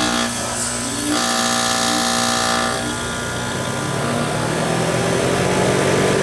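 Outdoor air-conditioner condensing unit, compressor and condenser fan, starting and running with a steady mechanical hum after its burned contactor was replaced.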